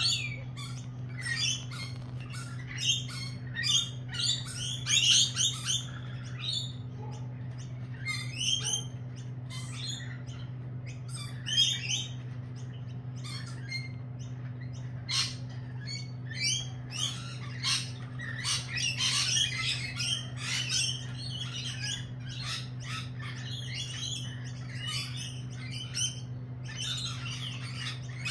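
Lorikeets squawking and chattering in short, repeated calls, busiest about two-thirds of the way through and again near the end. A steady low hum runs underneath.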